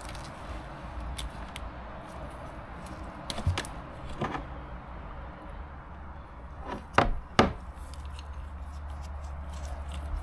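A few sharp knocks and cracks of hard plastic being pried and worked apart on an old backup camera housing, the loudest two close together about seven seconds in, over a steady low hum.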